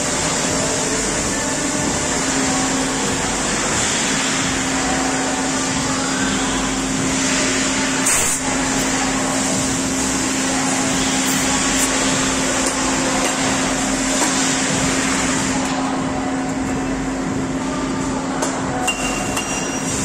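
Running noise of a DECKEL MAHO DMG 50Evo machining center: a steady hiss with a steady hum under it, and one short click about eight seconds in.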